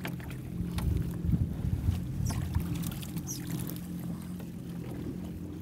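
Jet ski engine idling with a steady low hum, with water moving around the hull and a few light knocks.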